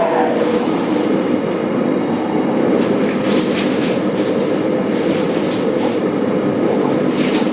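Cabin running noise of a JR Kyushu 817 series 3000 electric multiple unit's motor car at speed: steady wheel-on-rail rolling noise with scattered clicks. Just after the start the traction motor's whine drops in pitch and fades out.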